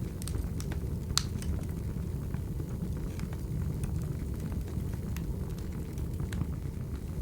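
Crackling wood fire: a steady low rumble of burning logs with scattered sharp pops and snaps, the loudest about a second in.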